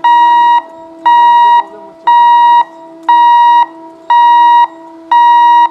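Railway level-crossing warning beeper sounding a loud, high electronic beep about once a second, each beep about half a second long, six times, over a steady lower tone held underneath.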